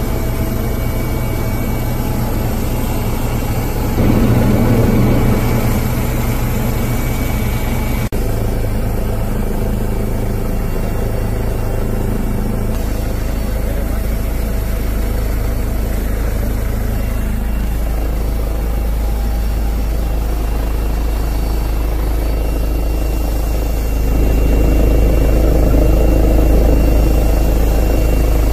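Helicopter engine and rotor noise heard from inside the cabin, a loud steady low drone that swells a little about four seconds in and again near the end.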